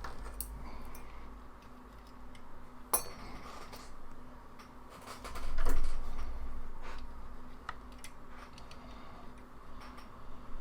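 Small metal tools clicking and tapping lightly on a repair bench during micro-soldering work, with a sharp click about three seconds in and a dull bump against the bench a little before six seconds. A faint steady hum runs underneath.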